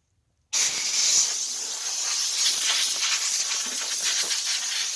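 Power cutting tool running and cutting through the speaker panel: a loud, steady hiss-like cutting noise that starts suddenly about half a second in.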